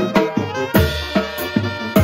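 Mexican brass banda playing: saxophones, trumpets and trombones over snare drums, cymbal and bass drum, with sharp drum strokes throughout.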